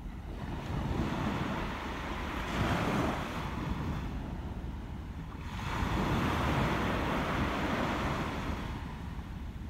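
Sea waves surging into a rocky hole: rushing water swells up twice, about a second in and again about halfway, with wind noise on the microphone.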